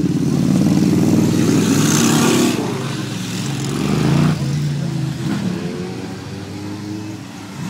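Motorcycles riding past one after another, each engine getting louder as it goes by. The loudest pass is about two seconds in, and another comes just after four seconds.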